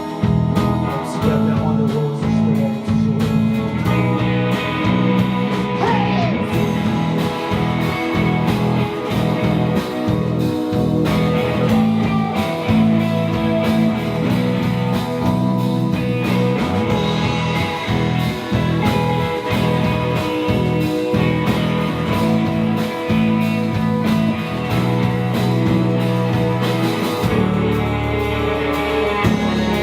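Instrumental rock passage with electric guitar over bass and drums, with a lead guitar line.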